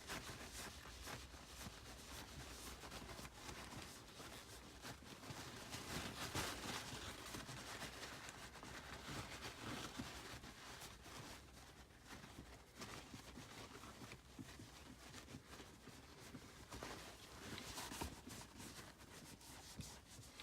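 Faint, uneven rubbing and rustling of a paper towel scrubbing the front of a manual gear shift knob clean.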